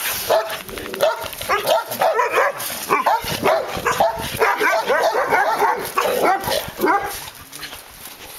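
Dogs barking and yipping in quick succession, tailing off about seven seconds in.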